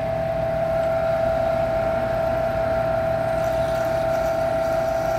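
Small metal lathe running with a steady, even motor whine while a stub drill in the tailstock chuck drills a pilot hole into the end of the spinning metal coupler.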